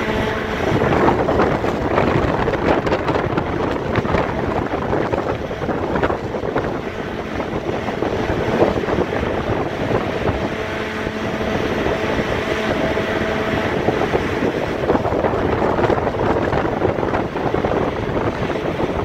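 Strong gusty wind buffeting a phone microphone, a loud rushing rumble that rises and falls. A faint steady hum comes and goes underneath.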